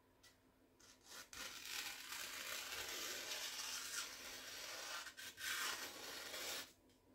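Chinese cleaver slicing through a sheet of magazine paper: a continuous papery hiss that starts about a second in, dips briefly near the end and then stops. The smooth, unbroken cut is the sign of a very sharp edge.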